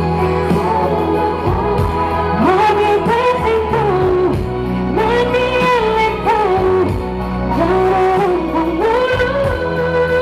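A woman singing a pop song into a microphone over amplified backing music. Her voice comes in about two seconds in, in phrases with long held notes.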